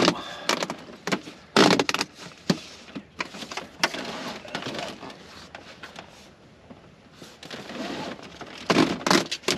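Handling noise from a portable air conditioner and its ducting hoses being shoved into a tent corner: irregular rustling and scraping with knocks and bumps, loudest a little over a second and a half in and again near the end.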